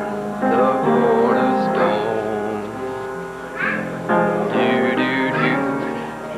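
Music with long held notes and a wavering voice over it.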